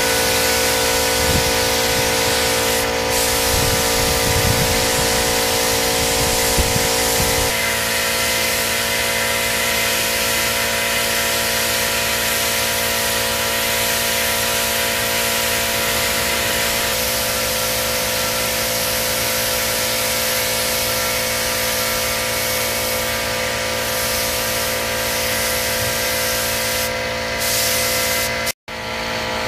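Gravity-feed paint spray gun on a compressed-air hose spraying paint, a steady hiss, with a steady hum beneath it that changes pitch about a quarter of the way in. The hiss cuts off abruptly just before the end.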